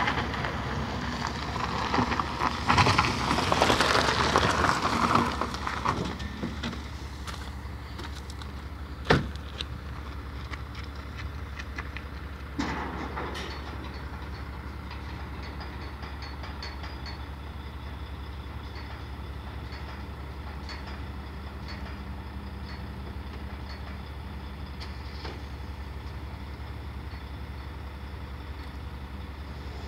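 Heavy car-carrier truck's engine idling steadily, with a louder rushing noise in the first few seconds, a sharp knock about nine seconds in and a duller knock around twelve seconds.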